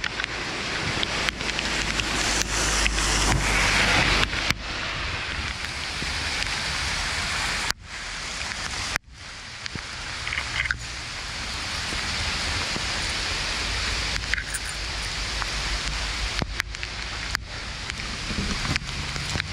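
Steady heavy rain falling, with wind rumbling on the microphone. The sound is broken by a few abrupt cuts.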